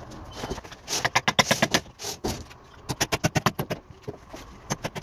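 Claw hammer tapping rapidly on a nail, fixing a wooden batten to a concrete block wall. There are three quick runs of sharp blows, about eight to ten a second.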